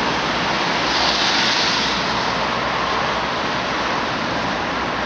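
Coach bus running close by: a steady rushing noise, with a brief brighter hiss about a second in.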